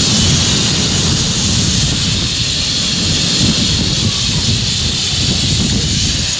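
Steady, loud rushing of wind buffeting the microphone, with an uneven low rumble under a constant hiss, as during a fast zipline ride.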